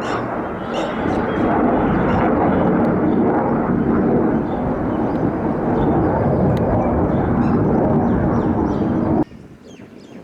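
Military fighter jet engine noise, a loud steady rush that cuts off suddenly about nine seconds in. Birds chirp faintly over it.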